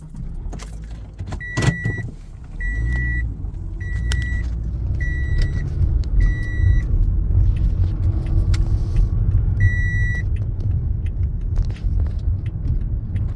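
A car's warning chime beeps five times about a second apart, then once more later. Under it the engine starts a couple of seconds in and keeps running, with a click just before the first chime.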